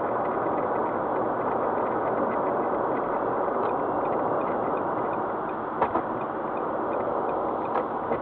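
Steady road and tyre noise inside a car cruising on an expressway, picked up by the dashcam, with two short knocks about six and eight seconds in.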